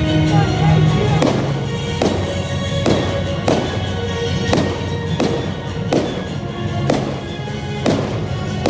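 Fireworks shells bursting in a steady series, about one bang every second, each trailing an echo, over music playing.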